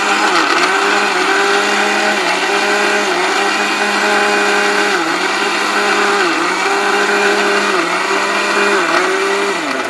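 A 1600-watt commercial electric blender with a stainless-steel jar runs, grinding ginger, onion and garlic into a paste. It gives a steady motor hum whose pitch dips briefly every second or two.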